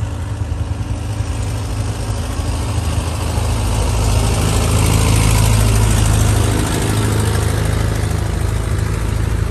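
Diesel engine of a Hino light truck running as the truck drives past close by, with tyre noise on the road. It grows louder to a peak about five seconds in, then eases off as the truck pulls away.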